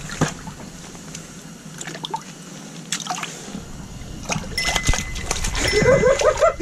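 Water splashing and sloshing in an ice-fishing hole as a smallmouth bass is put back in and flips at the surface. In the last two seconds, sharp clicks and a steady high tone join in, with a louder wavering pitched sound at the very end.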